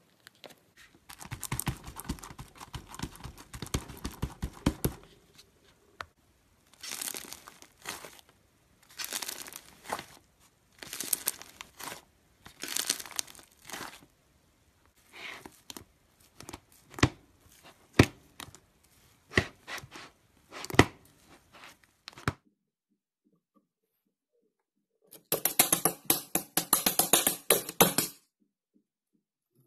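Foam-bead slime being squeezed and stretched by hand, crackling and popping. The crackling comes in bursts a second or two long with short pauses between them, then as single sharp pops. After a pause of about three seconds comes a denser, louder crackle lasting about three seconds.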